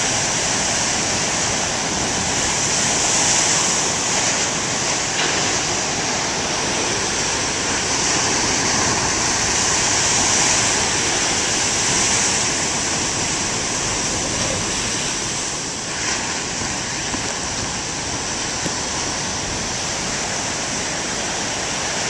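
Heavy ocean surf: big waves breaking in a steady rush of white water, swelling a little a few seconds in and again about halfway through.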